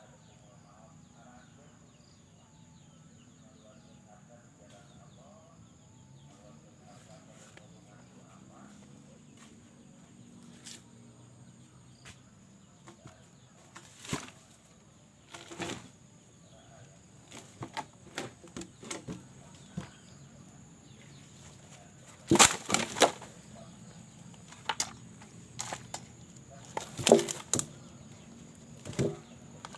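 Scattered sharp knocks and clatter, the loudest a cluster a little past the middle and another near the end, over a quiet background with a thin steady high whine. The first third holds little but that background.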